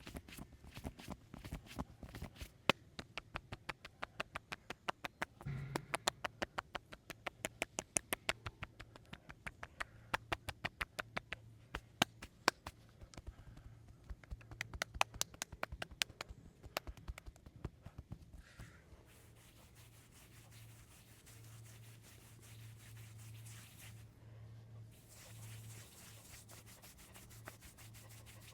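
Hands striking the body in a fast percussive massage, sharp slaps or chops at about four to five a second for most of the first eighteen seconds. Then the hands rub over skin steadily, with a low hum underneath.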